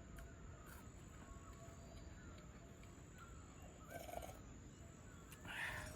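Faint outdoor bird calls: scattered short chirping glides, with a louder harsh call near the end, over a low steady background rumble.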